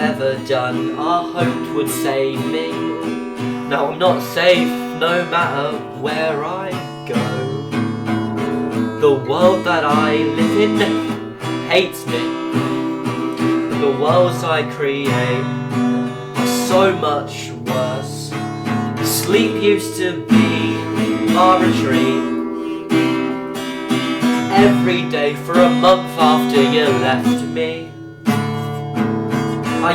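Instrumental break of an indie rock song: acoustic guitar strumming steady chords with a wavering melody line played over them.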